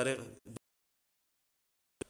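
A man's voice says a word, then the sound cuts out to dead silence for over a second before a fragment of speech returns at the very end: an audio dropout in a livestream on a weak mobile connection.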